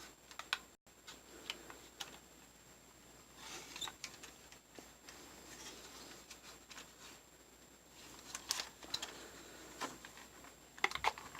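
Faint scattered clicks and rustles of a small plastic RC toy buggy being handled and turned over in the hands.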